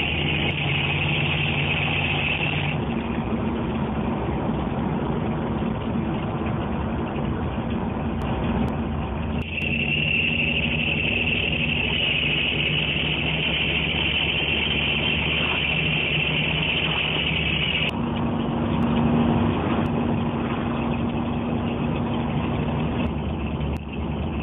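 The engine of a replica XA Falcon hot rod running on the road, its dual Flowmaster exhaust and tall zoomie side pipes heard from inside the cabin with the windows down. A steady high hiss drops out about three seconds in and comes back around the middle. The engine note gets louder and stronger a little after two thirds of the way through.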